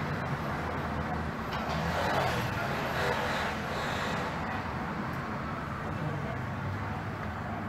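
First-generation B100S Stadtbahn car with 750 V DC traction motors and cam-switch control, running: a steady rumble with a low hum, swelling a little about two to four seconds in.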